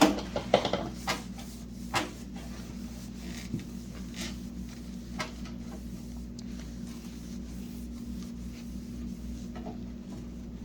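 Knocks and clatter of hard fridge parts being handled, loudest in the first two seconds, then occasional light clicks, over a steady low hum.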